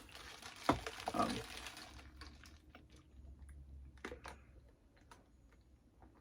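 Close-up eating sounds: faint chewing of pizza, with wet mouth clicks and smacks. A soft hiss runs through the first two seconds.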